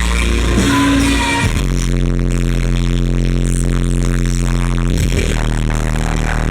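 Live band music played loud through a concert sound system, with held low chords that change about a second and a half in and again about five seconds in.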